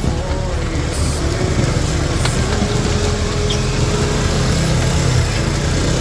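Motorcycle engine running at low speed while filtering through slow traffic, over the steady noise of the surrounding cars.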